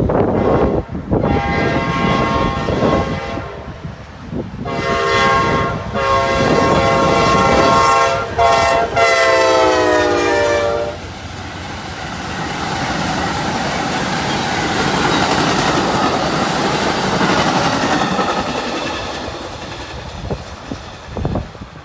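Amtrak diesel locomotive's horn sounding several long blasts as the train approaches, the last one dropping in pitch as the locomotive passes. Then the rushing and clatter of the passenger cars going by, fading near the end.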